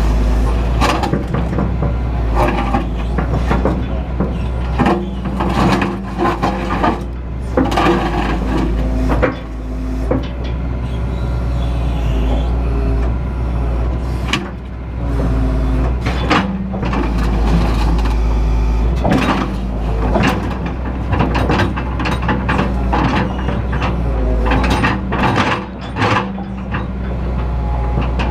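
Excavator's diesel engine running steadily while the machine works, its note rising and falling with load, with repeated metallic clanks and knocks from the moving boom, bucket and tracks.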